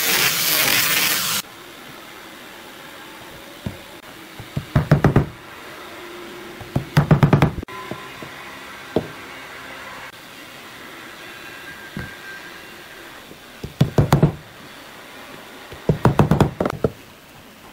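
An angle grinder fitted with a sanding drum runs against the end of a wooden board, then stops abruptly about a second and a half in. After that, a rubber mallet taps a wooden dowel into a wooden block in four short runs of quick knocks.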